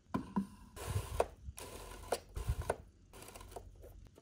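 Electric protein powder dispenser running in short spells as it drops powder into a plastic shaker bottle, with clicks and light knocks between.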